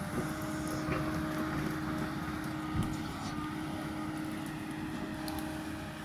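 Kobelco 220 hydraulic excavator running under load as it digs into a hillside, a steady engine sound with a held hum, and one heavy knock about three seconds in.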